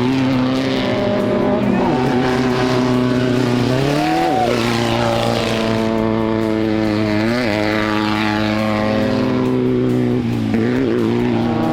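Off-road race bug's engine running hard at high revs. Its pitch holds steady, then climbs and drops sharply about four seconds in, dips again about halfway through and wavers near the end.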